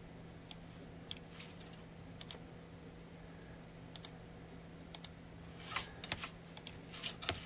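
Faint, irregular clicks of typing on a computer keyboard, sparse at first and coming more often in the second half, over a low steady hum.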